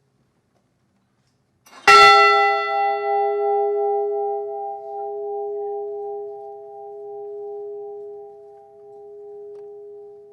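Memorial bell struck once about two seconds in, then ringing on with a long, slowly fading tone of several pitches that is still sounding at the end. It is tolled in memory of the crew member of the Edmund Fitzgerald whose name has just been read.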